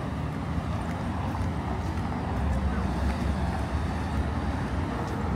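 Outdoor city street ambience: a steady low rumble of traffic and wind noise.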